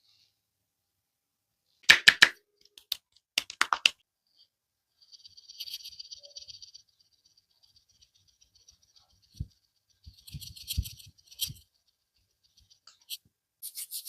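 Neck joints cracking during a barber's head and neck massage: a quick run of sharp cracks about two seconds in and another cluster a second and a half later. Then soft rubbing against hair and skin, with a few dull thumps near the end.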